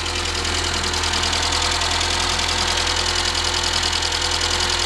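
Renault 5 engine idling steadily, heard up close under the open bonnet.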